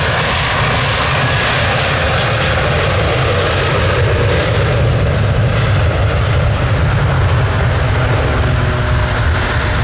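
Airbus A320's IAE V2500 jet engines at takeoff thrust: a loud, steady rumble with a hiss above it, growing a little louder about halfway through.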